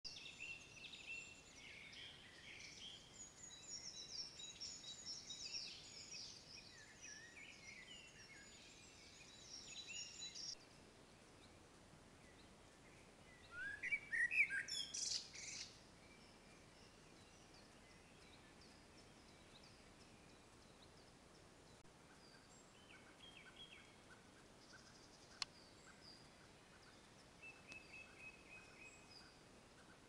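Woodland birdsong: several birds singing together for about ten seconds, breaking off abruptly. A few seconds later comes a short, louder run of chirps, followed by faint scattered calls and a single sharp click.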